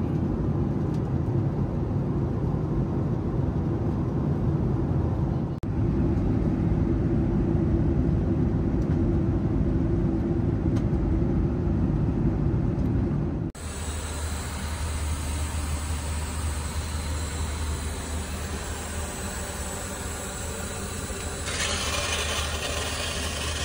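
Steady rumble of Boeing 737-800 cabin and engine noise. It cuts off sharply twice, the second time about thirteen seconds in, to a thinner, even hiss over a steady low hum.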